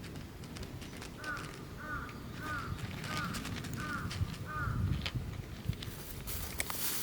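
A bird calling six times in an even series, about one call every two-thirds of a second, over low handling rumble and a few clicks, with a brief rustle near the end.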